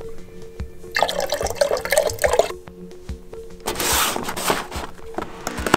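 Intro music with a low beat and held tones, joined by two swells of noise, one about a second in and another near the middle.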